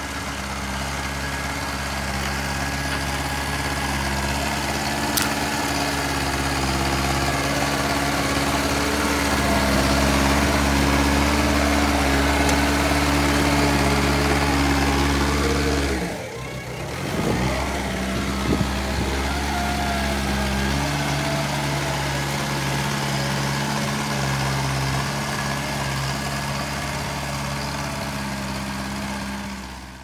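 JCB backhoe loader's diesel engine running steadily while the machine works, growing louder over the first several seconds and dropping out briefly about halfway through.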